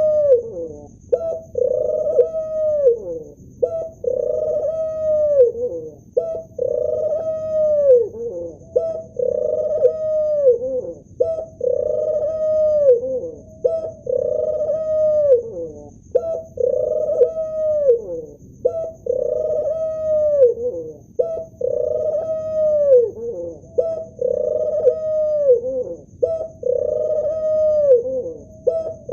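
Male ringneck dove cooing over and over, about one coo every two seconds. Each coo is a short note followed by a longer, low note that drops in pitch at its end.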